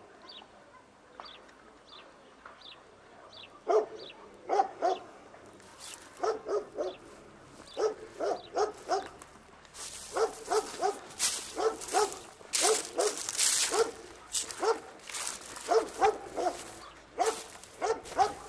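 A dog barking over and over in quick runs of two to four barks, with a pause of a few seconds near the start. From about six seconds in, bursts of hissing noise come in between the barks, loudest a little past the middle.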